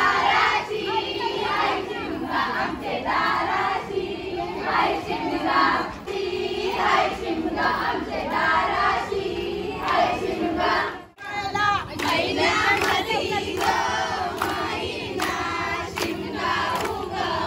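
A group of women singing a traditional folk song together in chorus. After a brief break about eleven seconds in, steady hand claps keep time, about two a second.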